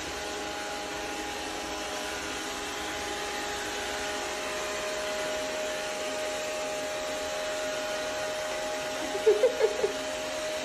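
Robot vacuum cleaner running with a steady whirring hum. About nine seconds in come a few short, wavering squeaks.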